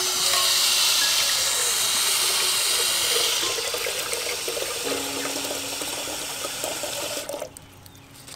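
Water from a tap pouring into an aluminium kettle, a steady rushing splash that stops abruptly near the end.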